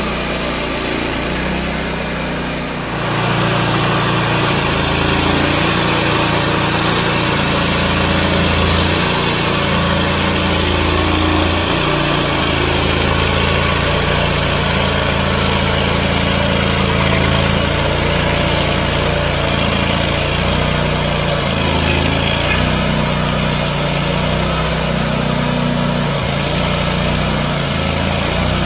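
Band sawmill's engine running under load with the blade cutting through a log, a steady loud hum and rasp that gets louder about three seconds in.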